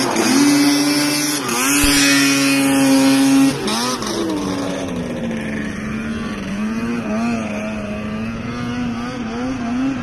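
Snowmobile engine running at high revs as the sled skips across open water, a steady high note. About three and a half seconds in it switches abruptly to a more distant sled whose engine pitch wavers up and down as it skims across the water.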